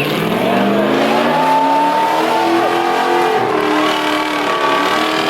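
Off-road 4x4 engine revving hard, its pitch rising and falling as it is worked under load.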